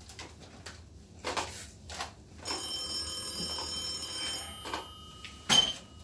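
Desk telephone ringing once, a steady high ring lasting about two seconds, among a few light knocks; a sharp, loud knock comes near the end.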